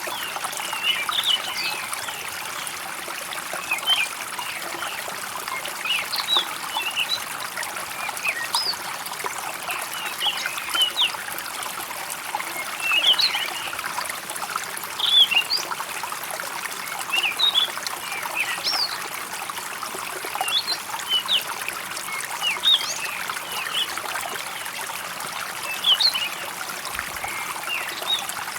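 Running water trickling steadily, with birds chirping over it in short, quick calls every second or so.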